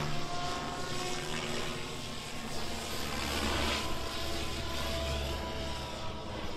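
SAB Goblin 630 electric RC helicopter in flight, its motor and rotor whine holding several tones that shift in pitch as it manoeuvres, with rotor noise swelling and fading.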